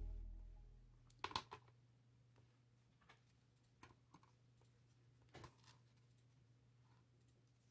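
Background music fades out in the first second. Then come faint, scattered clicks and snips: small scissors cutting a thin card part, followed by small card pieces being handled and tapped down on a cutting mat.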